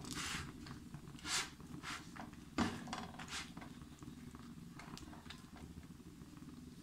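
Gas burner running with a steady low, rough rumble under a paratha frying in a nonstick pan. A few brief scraping strokes come as a silicone spatula presses and pushes the paratha, the loudest about two and a half seconds in.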